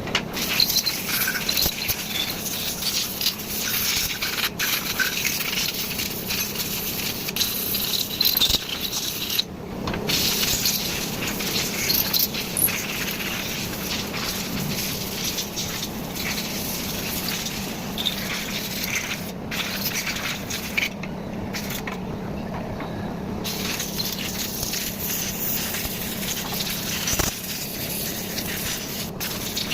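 Compressed air blowing to dry water off washed engine parts: a crackly, hissing rush that cuts out briefly a few times.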